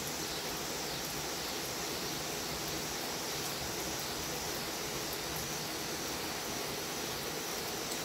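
Steady rain falling, an even hiss, with a high steady drone of cicadas behind it.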